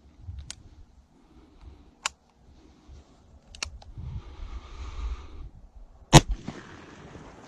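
A few faint, sharp clicks as the gun is handled and readied, then a single loud gunshot about six seconds in, followed by a brief echo.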